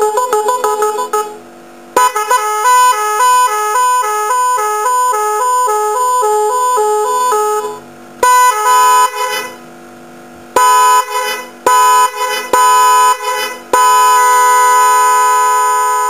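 Type R 12V twin snail horns driven by a 'magic horn' electronic controller, a telolet melody horn, playing its tune patterns. A quick run of notes stops about a second in; after a short break comes a repeating two-note pattern for several seconds, a brief burst of notes, a series of short blasts, and a long steady blast near the end.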